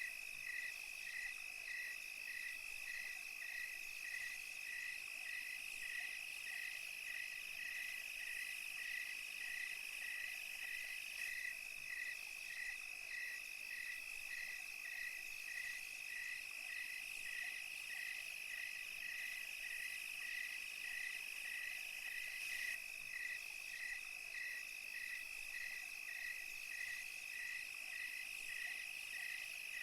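Night insect chorus: a continuous high, steady trill of crickets and other insects, with a chirping call pulsing in an even rhythm of about two a second just beneath it and a fainter high buzz above.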